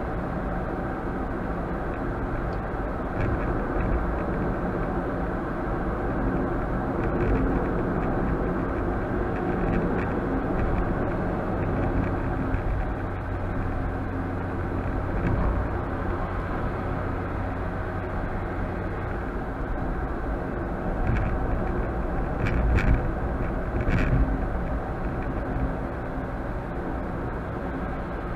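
Steady road and engine noise of a car being driven, heard from inside the cabin, with a low hum partway through and a few short knocks near the end.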